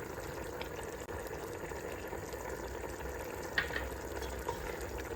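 Food sizzling and bubbling in a pan: a steady, even hiss, with a single short click about three and a half seconds in.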